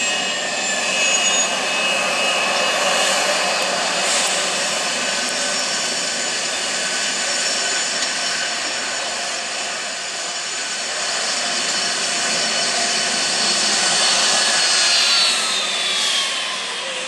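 Embraer E-99's twin Rolls-Royce AE 3007 turbofans running with a steady high whine as the jet taxis. Near the end the whine falls in pitch as the aircraft passes by.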